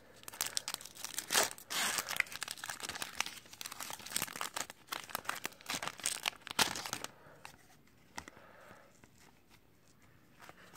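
Foil hockey card pack being torn open and crinkled in the hands: dense crackling and tearing that stops about seven seconds in, after which it goes much quieter as the cards are slid out.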